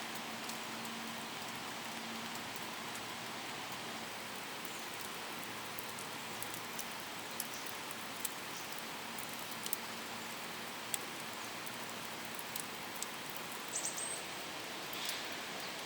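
Steady outdoor background hiss with sparse faint ticks and a short high chirp near the end.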